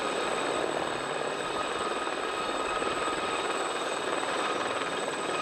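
Aérospatiale Gazelle helicopter flying low, its turbine and rotors running steadily with several high whining tones over the rotor noise.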